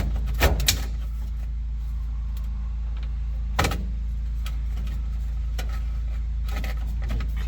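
Sharp knocks of metal parts being handled during a trial fit of a gear shifter: two quick ones about half a second in and one more about three and a half seconds in, over a steady low hum.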